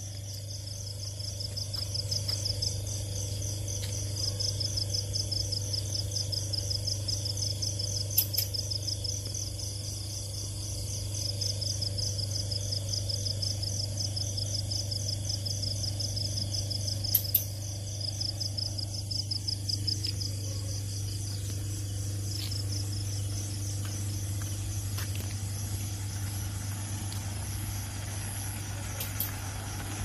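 Crickets trilling in a fast, evenly pulsing chorus that fades about two-thirds of the way through, over a steady low hum from the growth chamber system's fans.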